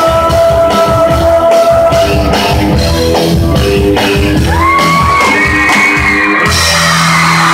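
Live rockabilly band playing loudly, with electric guitar, upright bass, drums and saxophone and long held notes, while the crowd shouts.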